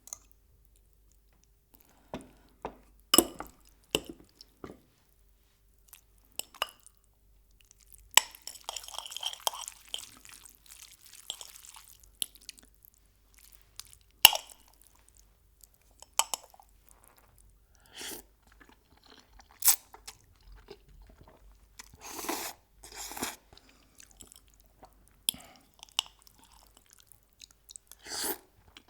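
Close-miked eating: chewing with irregular sharp crunches from crispy fried chicken, and a longer busy stretch of crunching and chewing about a third of the way in.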